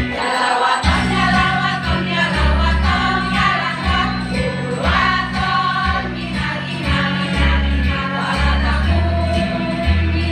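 A group of women singing a song together in chorus, over instrumental accompaniment with a steady bass line that comes in about a second in.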